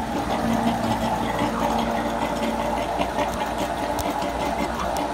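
Electric bilge and sump pumps running steadily, a constant hum with a fast, even rattle. They are pumping out water leaking into the bilge of a plank-on-frame wooden boat, whose planks have dried out over winter and have not yet swollen shut.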